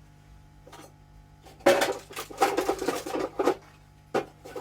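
Metal hand tools, screwdrivers among them, clattering and clinking against each other as they are sorted from a pile on a table: a rapid run of clinks in the middle, then two single clicks near the end.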